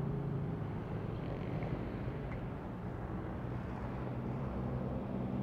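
Yamaha Sniper 155's single-cylinder engine idling steadily while the motorcycle waits at a stop, picked up by a handlebar-mounted action camera.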